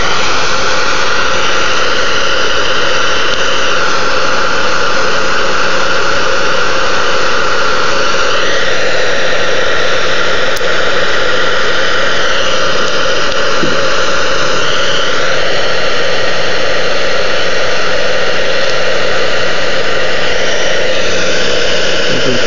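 Handheld hot-air blower running steadily, heating carbon-fiber vinyl film to make it pliable as it is pressed into a roof groove. It makes a loud, continuous rushing whir, and its tone shifts a few times.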